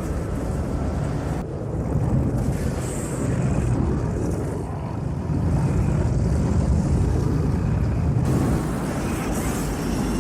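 Dubbed-in movie tornado sound effect: a dense, steady low rumble of roaring wind with no distinct tones, its texture shifting about a second and a half in and again around eight seconds.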